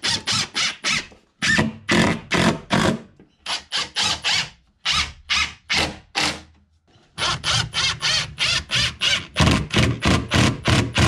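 Cordless impact driver driving heavy-duty construction screws through a plywood sheet into the pine battens behind it, a rapid hammering rattle in about five bursts with short pauses between screws.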